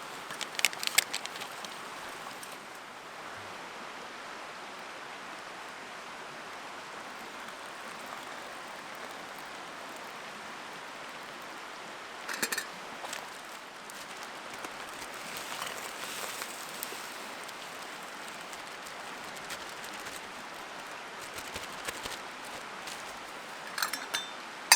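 Steady hiss of river rapids and light drizzle falling on a tarp, with a few brief clicks and knocks about a second in, around the middle, and near the end.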